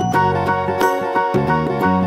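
Upbeat background music: bright plucked and keyed melody notes over a steady bass beat.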